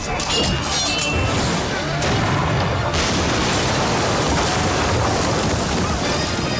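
Battle sound effects of cannon blasts and crashing debris as shots hit a wooden ship's deck, loud and continuous, with film score music underneath.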